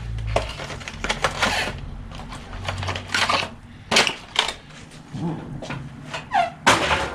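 Handling noise of small boxes and packaging: irregular rustling and clicking, with a few sharper knocks, louder about four seconds in and again near the end.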